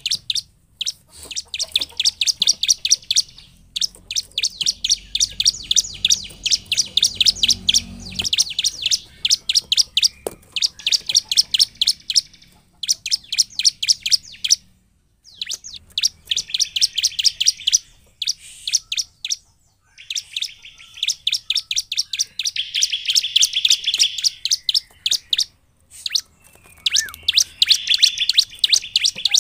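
Bar-winged prinia (ciblek) singing: rapid runs of short, high, repeated chipping notes in phrases of one to three seconds, broken by brief pauses.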